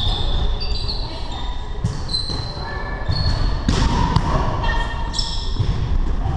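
Athletic shoes squeaking on a hardwood gym floor during a volleyball rally, with a few sharp hits of the ball, all echoing in a large gym.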